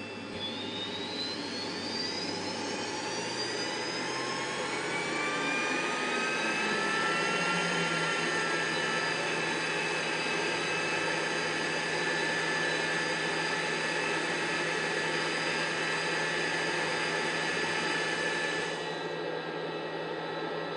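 Jet engine spooling up during start: a whine rising in pitch over about eight seconds, then holding steady at idle.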